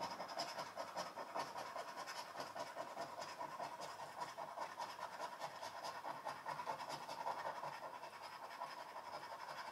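Scratch card being scratched: rapid, continuous short scraping strokes rubbing the coating off the card.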